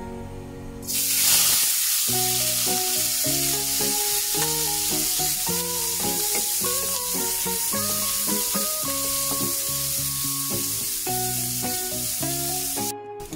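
Pieces of sukuti, dried buffalo meat, frying in hot oil in a wok while stirred with a wooden spatula: a loud sizzle that starts suddenly about a second in and stops abruptly near the end.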